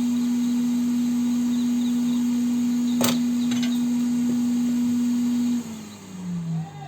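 Steady hum of a hot air rework gun's fan motor, with one sharp click about three seconds in. Near the end the hum drops in pitch and fades as the fan winds down.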